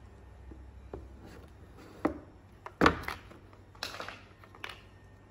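Hard plastic planter wall panels clacking and rubbing against each other as they are handled and pressed into their slots: a few sharp clacks about two and three seconds in, the loudest near the middle, and a short scrape about four seconds in.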